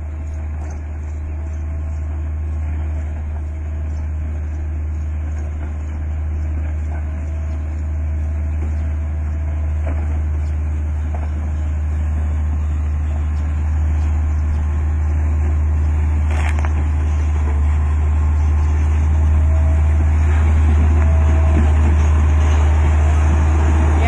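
Motor grader's diesel engine running as the machine approaches and passes close by, a steady low rumble getting gradually louder.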